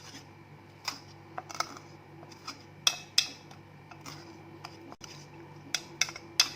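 Metal spoon stirring a liquid mixture in a small container, clinking irregularly against its side, with a light ringing after each clink.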